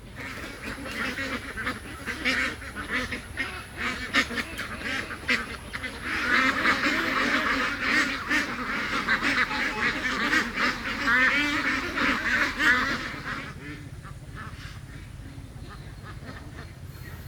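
A flock of ducks quacking together in a dense, overlapping chorus that grows louder about six seconds in and dies down near the end.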